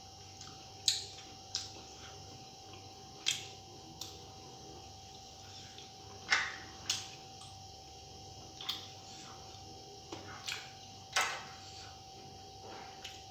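A person eating: short, irregularly spaced wet mouth smacks and clicks while chewing, about a dozen in all, over a faint steady hum.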